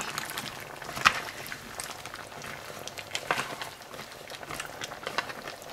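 Pork, squash and green beans boiling in stock and black bean sauce in a pan, bubbling and sizzling as a spatula stirs them, with a few sharp clicks of the spatula against the pan, the clearest about a second in.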